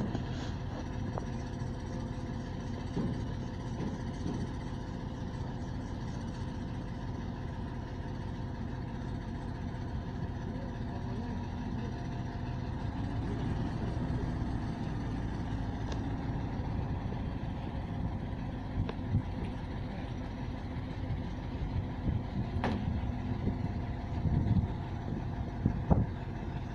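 Diesel engine of a truck-mounted crane running steadily, with a few short knocks and clanks toward the end.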